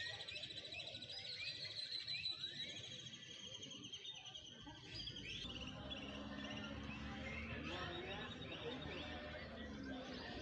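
A chorus of many birds singing and chirping in the plaza trees, with fast, repeated trilling chirps layered over each other. A low steady hum joins about halfway through.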